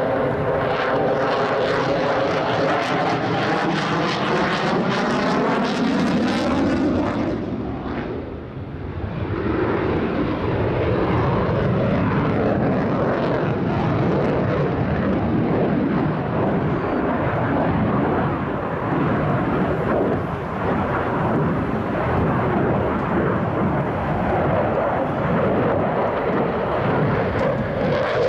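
Jet noise from a Dassault Rafale's twin Snecma M88 turbofans during a display flight. Over the first six seconds it has a falling, phasing sweep as the jet passes, fades briefly about eight seconds in, then settles into a steady loud rush.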